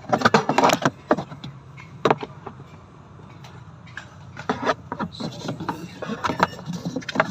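Irregular metallic clicks, clinks and knocks of hand tools and parts being handled on a twin-tub washing machine, over a low steady hum. The clicks come thickest at the start and again in the second half.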